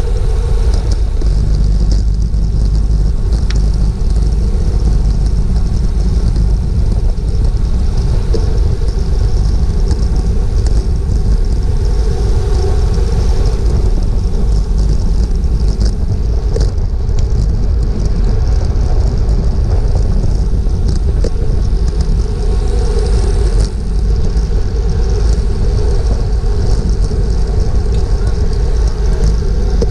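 Steady, loud wind rush and road noise on a bike-mounted action camera's microphone as a road bicycle rides at race speed in a pack of cyclists.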